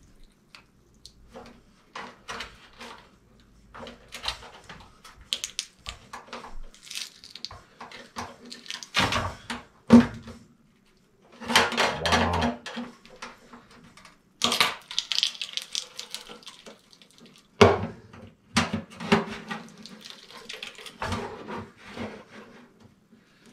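A hand screwdriver working at the sheet-metal collector box of a furnace heat exchanger: irregular scraping and clicking of metal on metal, broken by a few sharper knocks, the loudest about ten seconds in.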